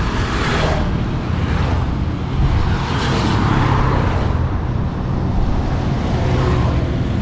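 Road traffic: cars passing by one after another over a steady engine and tyre rumble, with swells about a second in, about three seconds in and near the end.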